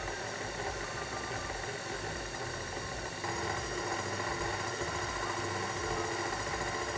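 KitchenAid Artisan stand mixer's motor running steadily at low speed, its beater mixing water into flour for yeast dough. The hum gets a little louder about three seconds in.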